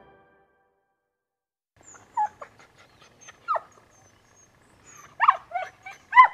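A few short animal calls with sliding pitch, scattered through the last four seconds after a quiet start, with faint high chirps between them.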